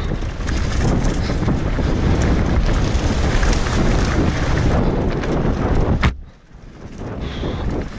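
Wind buffeting the camera microphone over the rattle and tyre noise of a mountain bike descending a dirt singletrack at speed. About six seconds in there is a sharp knock, and then the noise briefly drops away before it picks up again.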